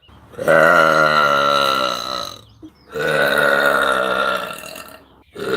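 A woman burping: two long, drawn-out belches of about two seconds each, with a short break between them, and a third starting at the very end.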